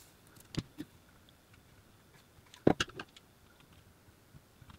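A few light clicks and taps of a screwdriver blade prying at the edge of a circuit board held to an LCD panel's metal back by sticky pads: two small clicks about half a second in, and a sharper cluster of clicks about halfway through.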